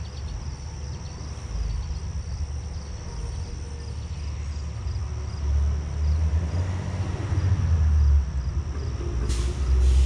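Low rumble of wind buffeting the microphone, growing stronger in the second half, with a faint steady high tone behind it.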